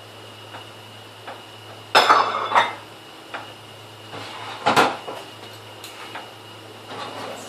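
Dishes and cutlery clinking and clattering as they are washed by hand, with a loud clatter about two seconds in and another near the end.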